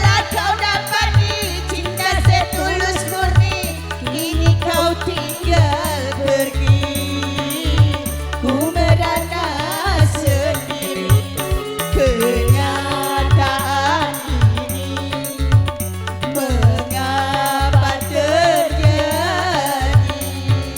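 Dangdut koplo band playing: a quick, regular hand-drum (kendang) beat with deep low strikes under a melody that slides and bends in pitch.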